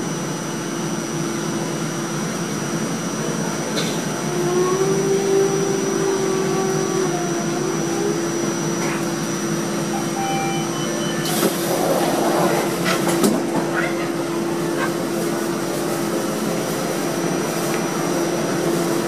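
Light-rail car's onboard ventilation and equipment running with a steady hum and whoosh while stopped at a station. About eleven seconds in, the doors open with a couple of seconds of hissing and a few clunks.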